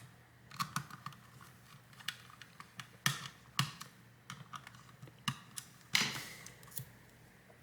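Irregular light clicks and taps of small hard objects being handled, about a dozen, with one louder knock about six seconds in.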